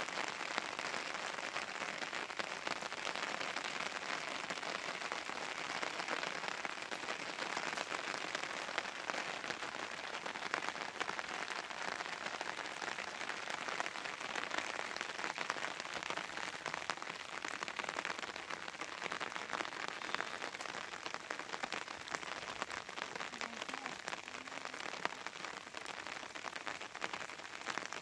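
A steady, dense patter of many fine crackles and ticks with no pauses, a rain-like noise that keeps an even level throughout.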